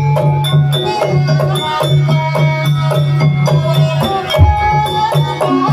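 Javanese gamelan accompanying a kuda kepang (ebeg) dance: struck pitched instruments ringing in a quick, even run of notes over a steady low sustained tone.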